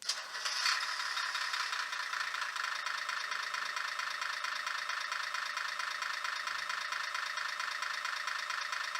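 Electronic diesel-engine sound effect from a 1:50 scale Scania truck model, played through a small speaker. It starts up suddenly, then settles into a steady, rhythmic, tinny idle with almost no bass.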